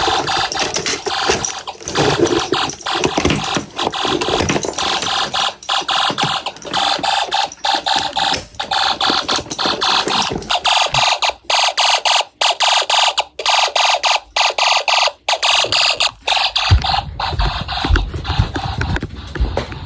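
Snap Circuits fire alarm horn sounding a loud, harsh buzzing tone that is broken again and again by brief dropouts. Near the end the buzz thins and a low rumbling comes in.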